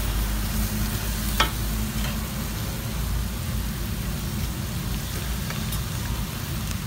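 Shrimp, garlic chives, tomato and onion sizzling steadily in a hot steel wok as they are stir-fried, over a steady low rumble. A metal spatula clinks against the wok once about a second and a half in.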